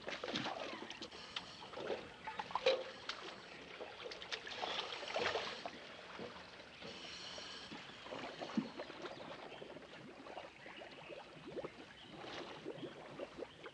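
Quiet, irregular splashing and lapping of water as scuba divers wade down a boat ladder into the water.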